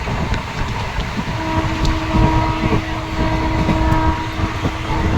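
Train in motion: a steady low rumble with uneven knocks and clatter. About a second and a half in, a steady pitched tone with overtones comes in over it and holds.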